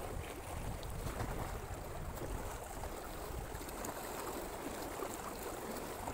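Steady rushing outdoor background of water at the fishing spot, with a low wind rumble on the microphone.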